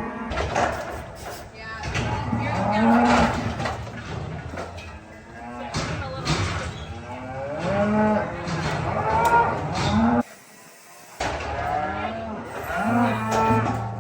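Several cattle mooing over and over, their calls overlapping, with a short pause about ten seconds in.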